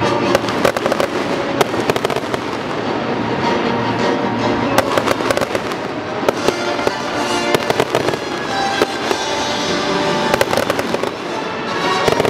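Fireworks bursting and crackling, a rapid run of sharp reports throughout, with music playing along.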